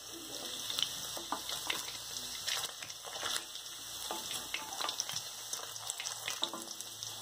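Paneer cubes frying in hot oil in a kadhai, sizzling steadily with frequent small crackles.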